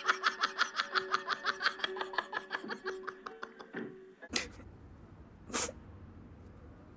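A woman laughing hard in a long, even run of "ha-ha" pulses, about four or five a second, that fades out after about four seconds. Then come two short breaths, a second or so apart.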